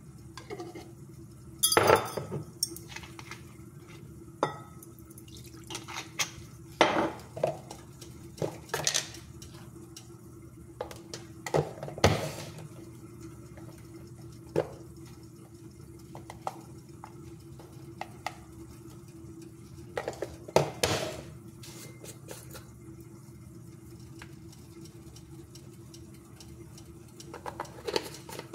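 Scattered clinks and knocks of a spoon and containers against a glass measuring jug and a tiled counter as ingredients are added and mixed, over a steady low hum.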